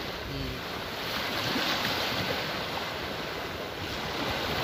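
Sea surf washing onto the beach, with wind buffeting the microphone: a steady, even rushing noise.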